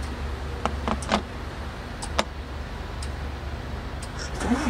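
Chrome sockets and ratchets from a Kobalt socket set clinking against each other and against the plastic tool case as they are handled: a few sharp clicks in the first three seconds, the loudest a little after one second. A steady low hum runs underneath.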